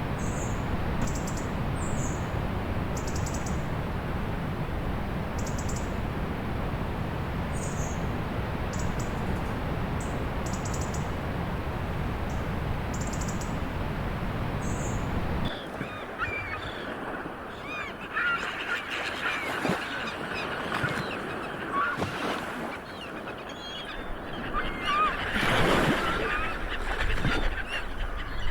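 Ocean surf as a steady, dense rush. About halfway through it cuts to a quieter shore soundscape: many birds call in short honking cries over waves washing in, and one wave swells up loudly near the end.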